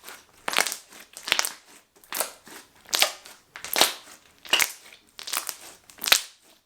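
Slime being squeezed and worked over and over, a wet crackling squish repeating about once every 0.8 seconds.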